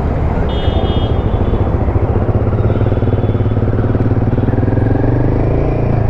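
Royal Enfield Himalayan 450's single-cylinder engine running steadily at a constant note.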